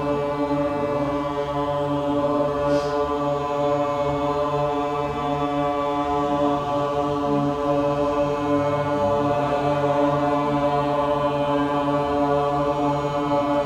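Group chanting of a mantra in unison, held on long, steady notes without a break.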